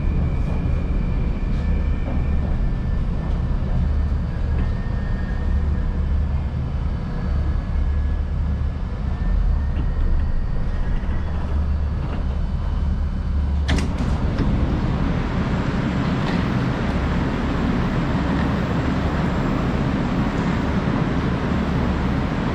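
Inside a Moscow Metro 81-775/776/777 'Moskva-2020' car: a steady low hum with a faint whine. A sharp clack comes about fourteen seconds in, after which a louder rushing noise takes over.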